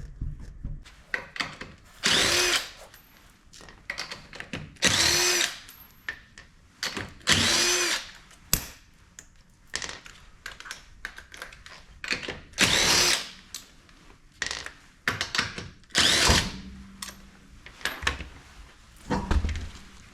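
A power tool is run in about six short bursts, each about a second long, its pitch rising and falling as the motor spins up and slows. Scattered light clicks and clanks of metal parts being handled fall between the bursts.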